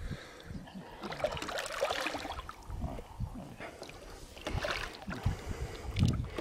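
Water splashing and lapping around a small fishing boat, with scattered knocks against the hull.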